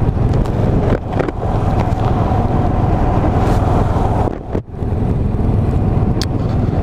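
KTM Duke motorcycle engine running under way, with wind noise on the microphone. The engine sound dips briefly twice, about a second in and again around four and a half seconds in.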